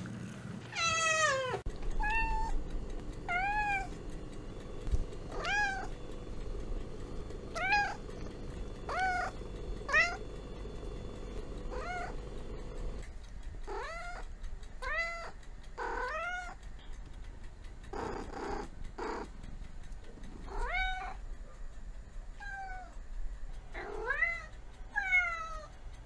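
Domestic cats meowing over and over: short meows that rise and fall in pitch, coming every second or two, with one longer falling meow near the start.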